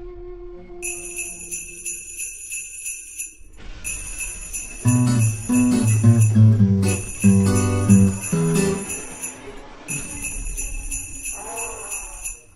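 Background music led by jingling bells that start and stop in several stretches, with a low bass melody joining about five seconds in and dropping out around nine seconds.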